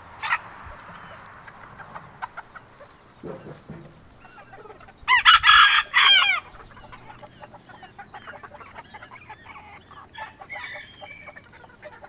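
A rooster crows once, loud, about five seconds in, among hens clucking softly on and off.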